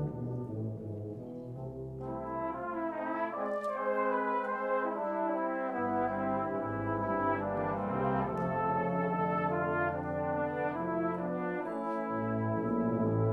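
A brass band plays in harmony on cornets, horns, euphoniums, trombones and tubas. Higher parts join about two seconds in, and the low bass line drops out for a few seconds before returning.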